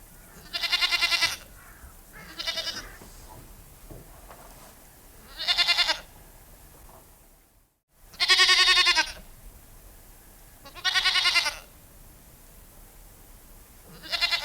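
Goat bleating: six quavering bleats spaced a few seconds apart, each about half a second to a second long, the second one softer.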